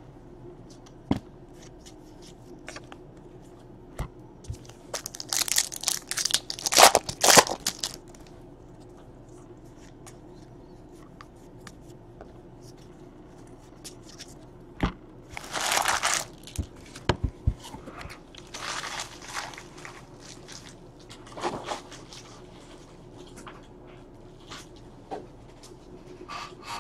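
Baseball cards and their packaging being handled: several bursts of crinkling and rustling, the longest about five to seven seconds in, others around fifteen, nineteen and twenty-one seconds, with a few faint clicks of cards between them.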